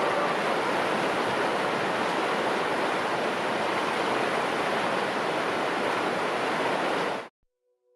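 Steady rushing of water, like a waterfall or mountain stream, that cuts off suddenly about seven seconds in; a soft ringing musical tone begins just after.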